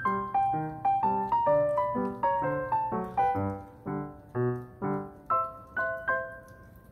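Background piano music: a light melody over a bass line at a steady pace of several notes a second, slowing to a few held notes near the end.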